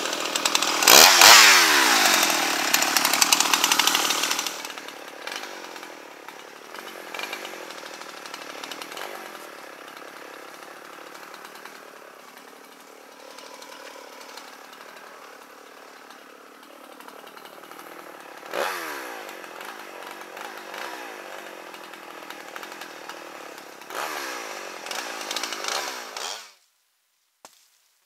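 Gas chainsaw running hard at full throttle for a few seconds near the start, then dropping back to a quieter idle with a couple of short revs, and cutting off suddenly near the end.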